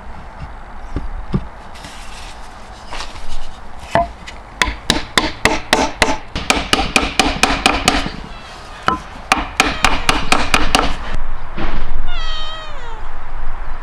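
A rapid run of sharp knocks and taps, several a second, some with a short ring. Near the end comes a brief wavering, falling squeal.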